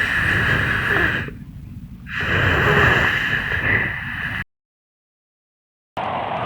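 Wind sound effect: a whistling wind rises and falls in two gusts, then cuts off abruptly to dead silence for about a second and a half. Near the end a steadier, lower-pitched wind starts up.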